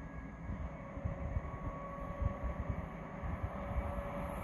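Approaching train hauled by an ONCF E-1450 electric locomotive, heard in a railway tunnel as a low rumble that slowly grows louder, with a faint steady whine over it.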